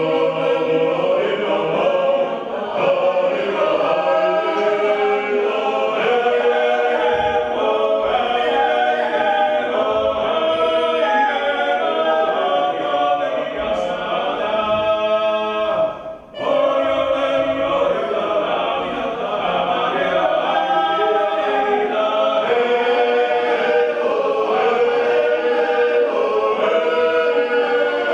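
Georgian folk choir singing, several voices holding sustained notes in harmony, with a brief break about sixteen seconds in before the singing resumes.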